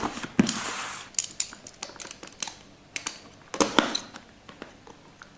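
Hands handling a cardboard keyboard box on a table: a brief scraping rush, then scattered light taps and clicks of fingers and cardboard, the loudest about two-thirds through.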